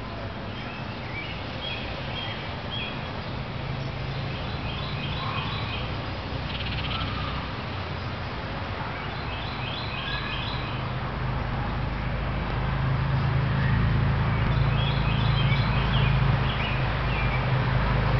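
Outdoor ambience: small birds chirp in several short bursts of quick, high notes. Under them, a low engine hum of a vehicle grows louder through the second half.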